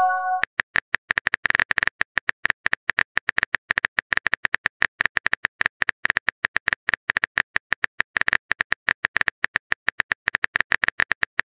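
Phone on-screen keyboard typing sound: rapid, evenly spaced clicks as a text message is typed letter by letter. It opens with a short chime as a message bubble appears.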